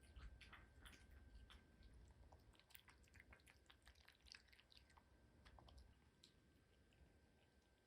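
Faint, irregular clicking chewing sounds, typical of a cat eating.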